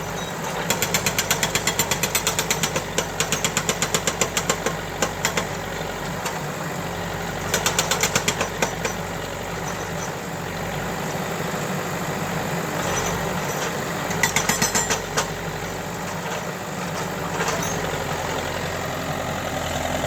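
Tractor loader engine running steadily, with three spells of rapid, evenly paced knocking or rattling at about eight to ten a second: a long one near the start, a short one about halfway through, and another shortly after.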